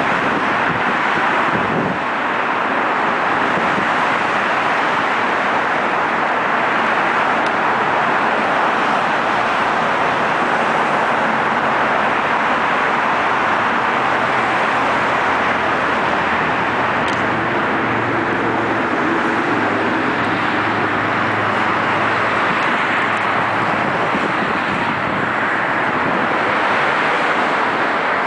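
Steady road traffic noise, with a low engine hum more prominent in the middle.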